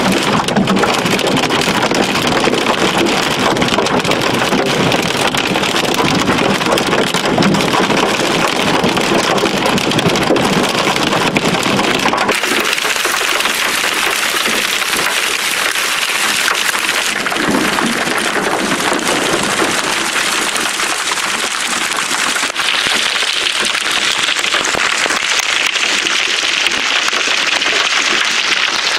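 Heavy hail and rain pelting a car, a dense, continuous loud clatter. About twelve seconds in the sound changes abruptly to a thinner, higher hiss of hail and rain.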